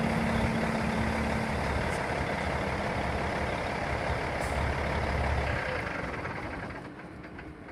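2006 Peterbilt 379 semi tractor's diesel engine idling, a steady low rumble that fades over the last two seconds.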